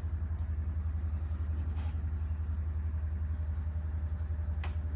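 A car engine idling: a steady low rumble with a fast, even pulse. Two faint clicks come about two seconds in and near the end.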